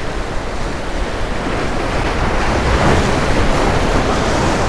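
Rough surf breaking and washing over the jetty's granite rocks, a steady rushing wash that swells to its loudest a little past the middle as a wave crashes in.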